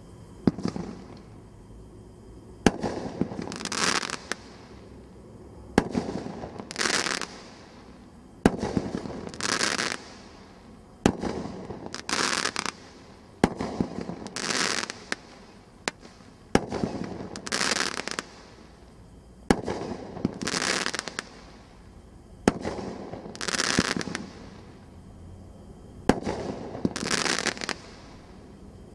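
A 16-shot firework cake firing one shot about every three seconds. Each shot is a sharp launch thump, followed about a second later by a burst that crackles for about a second.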